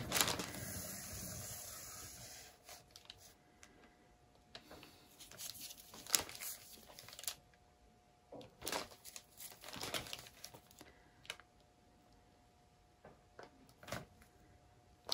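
A paint-pouring turntable spinning with a painted canvas on it, its whir fading out over the first few seconds as it slows to a stop. Then come scattered small clicks and rustles from gloved hands handling a skewer.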